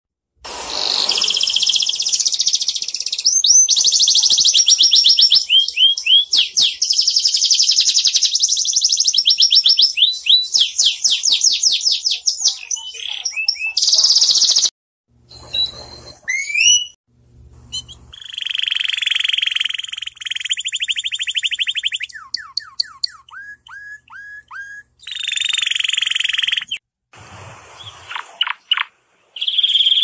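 Domestic canary singing: long rolls of fast, high repeated chirps and trills. The song comes in several pieces that stop and start abruptly, with short gaps between them.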